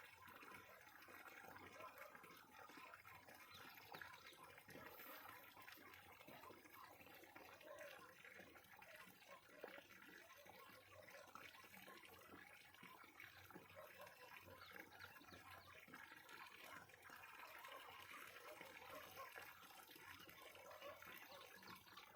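Faint water sounds: a steady crackle of small splashes and slurps from grass carp feeding on grass at the water surface.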